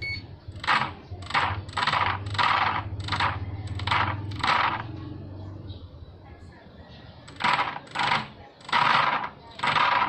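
An RC boat's Racerstar brushless motor blipped on the throttle in short bursts, spinning the drive with the boat out of water, with a whirring rattle on each burst. There are about seven quick bursts, a pause of about two seconds, then four more near the end.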